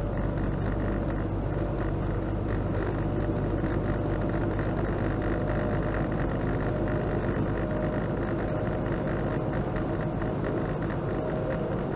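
Semi truck's diesel engine droning steadily at cruising speed, with tyre and road noise, heard inside the cab.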